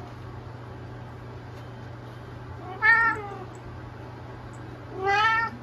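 Kitten meowing twice, the second call slightly longer, over a steady low background hum.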